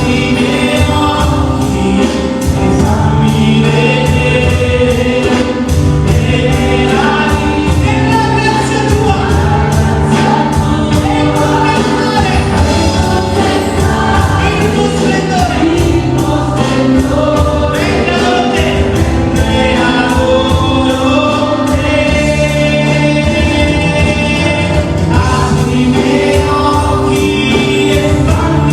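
Gospel worship music with a choir singing over sustained bass and keyboard chords.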